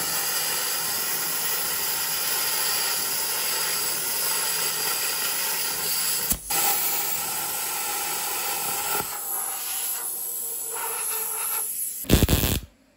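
MIG welder arc running on a stainless-steel exhaust pipe, a steady crackling hiss that breaks off briefly about six seconds in and turns patchy near the end. A short loud clatter about twelve seconds in.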